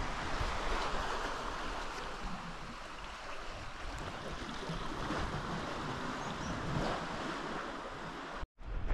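Steady rushing water with a low rumble beneath it; the sound cuts out for a moment near the end.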